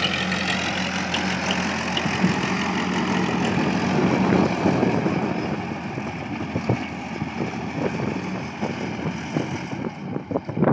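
Powertrac Euro 55 tractor's diesel engine running steadily while it pulls a rotary tiller. Near the end the sound turns rougher, with scattered sharp clicks.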